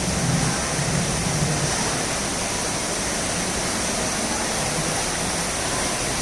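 Steady rushing noise, an even hiss that holds at one level throughout.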